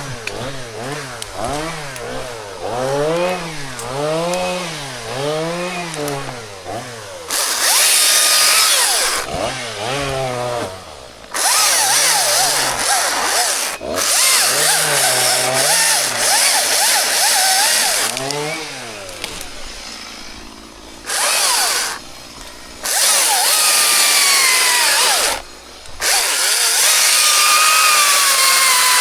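Chainsaw revved up and down several times, its pitch rising and falling, then cutting into wood at full throttle in repeated runs of a few seconds each, dropping back briefly between cuts.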